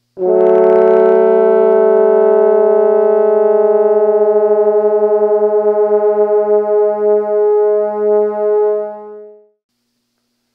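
Two trombones holding the same note slightly out of tune against each other, their combined sound pulsing in a wah-wah-wah beat. The beating slows steadily as one player's pitch is brought toward the other's, the sign of the two notes moving toward unison. The note stops about a second before the end.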